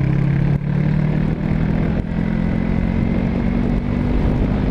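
Small Yamaha parallel-twin motorcycle engine running steadily while riding, its pitch creeping up slightly, under a low wind rumble.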